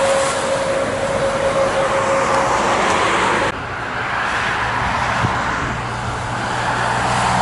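A DAF CF85 tractor-trailer passes and pulls away with tyre and engine noise. An abrupt cut about three and a half seconds in switches to a MAN TGL light box truck approaching, its low engine hum and tyre noise growing louder toward the end.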